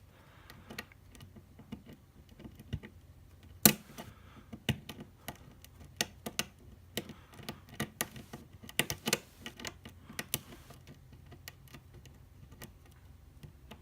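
Lock pick and tension wrench working the pins of a Wilka euro cylinder: irregular small clicks and ticks, with one louder click about three and a half seconds in.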